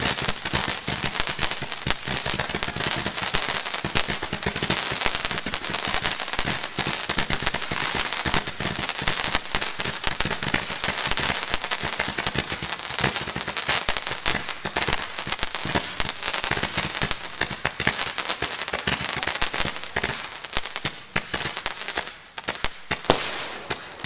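Fireworks firing: a dense, rapid stream of crackling pops and small bangs, thinning out over the last few seconds with one louder bang near the end.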